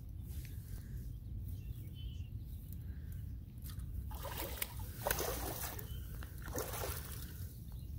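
Hooked sturgeon splashing and thrashing at the surface close to the bank in several bursts from about halfway through. Steady wind rumble on the microphone runs underneath.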